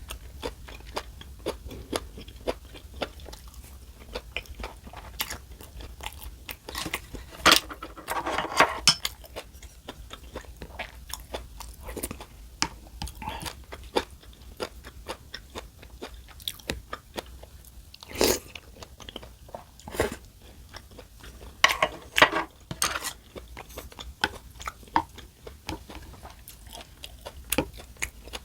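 Close-miked eating: chewing and crunchy bites of food, with many small sharp clicks and a few louder crunches along the way.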